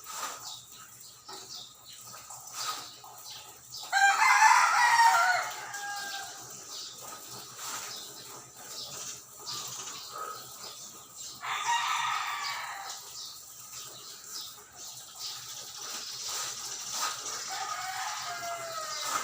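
An animal calling three times, each call a loud pitched cry of a second or two that falls in pitch. The first, about four seconds in, is the loudest; the last, near the end, is fainter.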